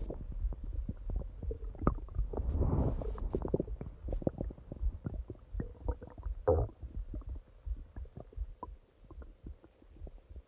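A person's stomach growling and gurgling: a run of short pops and squelches, with longer rumbles about three seconds in and again near the middle, thinning to scattered pops toward the end.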